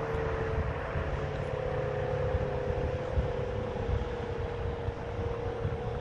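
ACA Penetrator-50 (P-50) rotating tornado siren sounding the attack signal: a steady siren tone that drifts only slightly in pitch.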